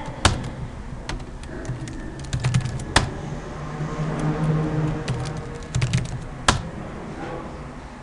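Computer keyboard typing in two quick runs of key clicks, with three louder single clicks spaced a few seconds apart.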